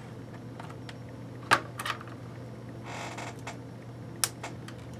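A few sharp clicks and taps as a hobby knife and other small hand tools are set down and handled on a workbench cutting mat. The loudest click is about a second and a half in, with two lighter ones just after, a brief rustle around three seconds, and another sharp click near the end, all over a steady low hum.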